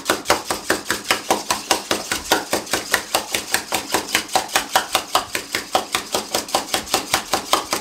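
Wire whisk beating eggs in a small bowl, clicking rapidly and evenly against the bowl's sides at about six strokes a second.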